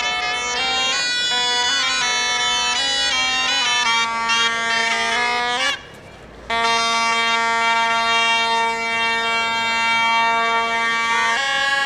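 Bagpipes playing a tune over a steady drone. Both stop for about half a second near the middle, then the tune resumes with long held notes.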